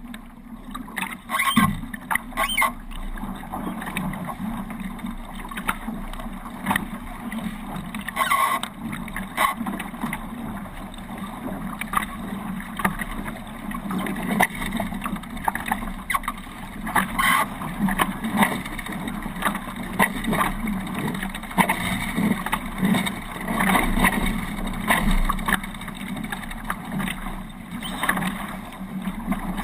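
Water rushing and splashing along the hulls of a Hobie 18 catamaran under sail, with irregular sharp slaps of spray and chop throughout.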